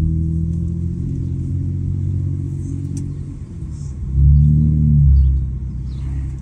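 Muffler-deleted Honda Accord 3.5-litre V6 running while driving, a steady low exhaust drone that swells louder for about a second a little past the middle as the throttle opens.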